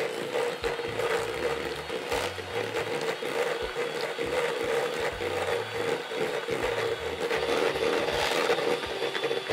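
Electric hand mixer running steadily, its beaters creaming softened butter in a stainless steel bowl for buttercream, with a steady motor hum and irregular scraping and knocking of the beaters against the bowl.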